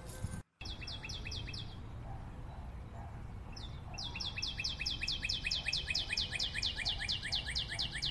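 A bird singing rapid trills of short descending chirps, about five or six a second. A short run comes at the start and a longer one from about four seconds in, over a low steady background rumble, with a brief total dropout about half a second in.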